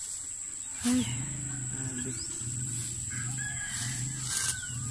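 A rooster crowing, over a steady high-pitched whine, with a sharp crunch about a second in.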